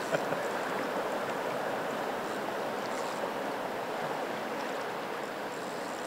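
Fast river current rushing through a choppy riffle: a steady wash of water noise.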